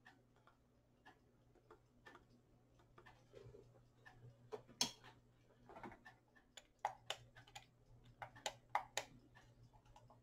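Faint, irregular clicks and light taps, more frequent and louder in the second half, over a low steady hum.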